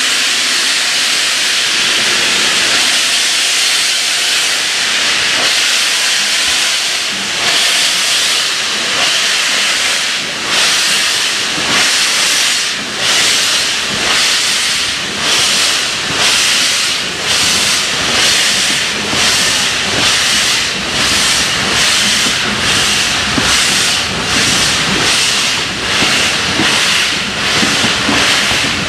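Steam locomotive pulling away, its steam hissing loudly amid clouds of steam at track level. From about eight seconds in, the exhaust beats come through the hiss and quicken steadily as the engine gathers speed.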